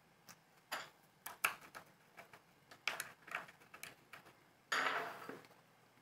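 Small 6061 aluminum blocks and a metal pin clicking and tapping against each other as they are handled and fitted together, a dozen or so sharp little clicks, then a louder sliding scrape near the end.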